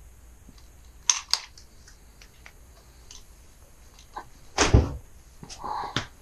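Handling noises: two sharp clicks about a second in, then a heavy thump a little past halfway, followed by a short scraping rustle and a knock near the end, as objects are picked up and set down.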